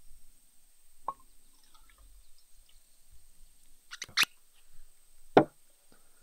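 Glass whisky bottle and its cork stopper being handled: a small click about a second in, two sharp clicks about four seconds in, then a heavier knock near the end as the bottle is set down on a wooden railing.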